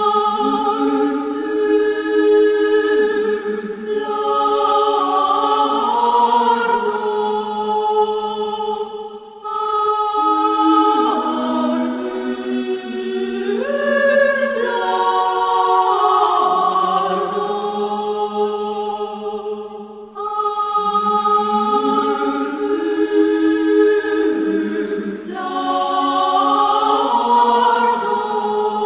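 A choir singing slow chords in long held notes, several voices at once, in phrases with short breaks between them.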